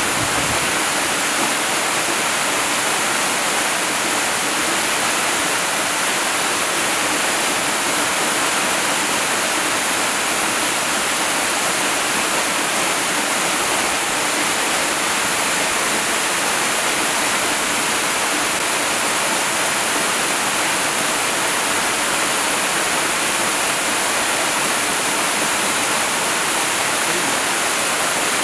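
Waterfall: water pouring and splashing in a steady, unbroken rush, heavy in hiss and light in low rumble.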